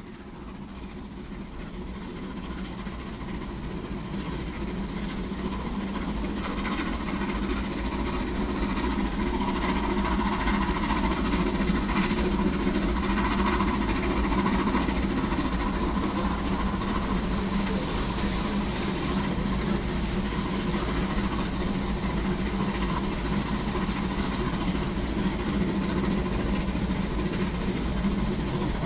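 Railway train sound, a steady rumble that fades in over the first several seconds and then holds even.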